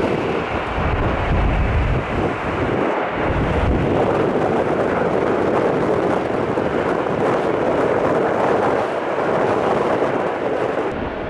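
Jet airliner's engine roar, loud and steady, mixed with wind buffeting the microphone; it eases slightly near the end.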